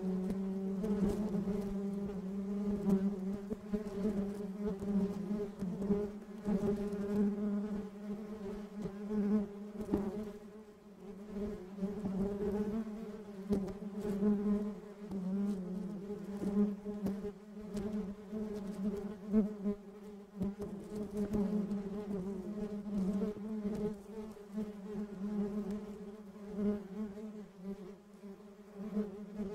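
Honeybee buzzing: a steady low hum that swells and fades in loudness.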